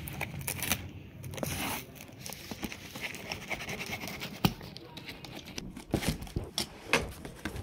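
A taped cardboard shipping box being handled and picked open: packing tape crinkling and tearing, cardboard scraping and rustling, with scattered clicks and knocks as the box is turned on a wooden table.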